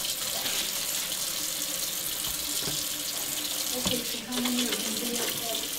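Kitchen-sink tap running steadily as a person washes her hands under the stream.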